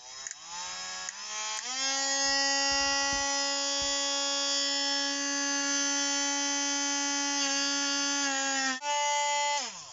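Parkside cordless rotary tool spinning a wire brush against corroded model locomotive wheels. Its motor whine rises in pitch as it winds up to speed over the first couple of seconds, then holds steady. Near the end the whine dips briefly, then falls away as the tool is switched off.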